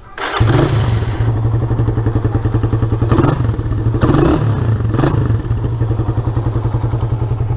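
Suzuki Raider 150 single-cylinder four-stroke motorcycle engine, with an aftermarket Tsukigi header pipe and the stock muffler, running at idle from about half a second in, blipped three times around the middle. The owner finds it sounds much the same as stock.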